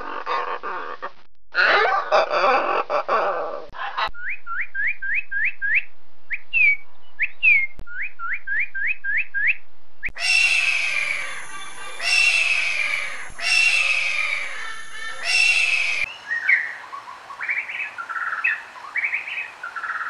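A run of bird calls that changes type several times. It opens with harsh squawks from blue-and-yellow macaws. From about four seconds in there is a fast series of short rising whistled notes. Then come four long falling calls about a second and a half apart, and near the end scattered short chirps.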